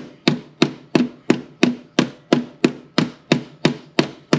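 Hammer blows on the steel floor panel of a Range Rover Classic footwell, backed by a weight held on the other side, to knock a corner flat against the seam. Steady rhythm of sharp strikes, about three a second, each with a brief metallic ring.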